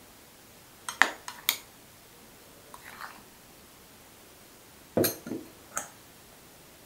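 Metal spoon clinking against a glass bowl and a wire mesh sieve while flour is spooned in for sifting: a few light clicks about a second in, then a louder clatter of metal on metal about five seconds in as the sieve is handled over the steel bowl.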